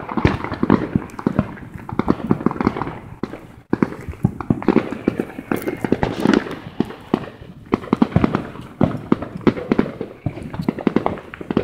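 Fireworks and firecrackers going off in a dense, continuous crackle of rapid sharp pops.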